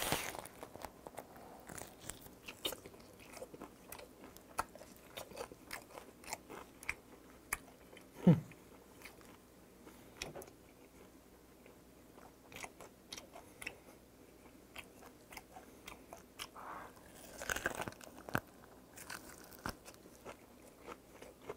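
Close-up eating sounds of a raw pomfret sashimi sandwich wrapped with romaine lettuce, onion and green chili: a bite, then wet crunching and chewing clicks. About eight seconds in comes a short falling voice sound, the loudest moment.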